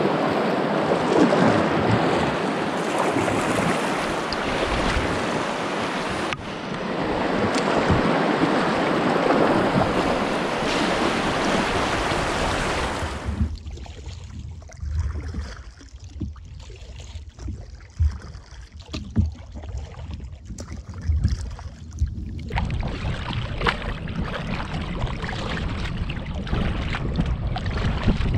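Rushing water of shallow, rocky river rapids around a canoe, with wind on the microphone. About halfway through it cuts suddenly to quieter water with scattered low knocks, then the rushing returns.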